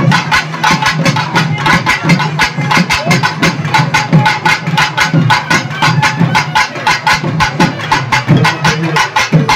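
Fast, driving festival drumming: many even strokes a second over a steady low drone.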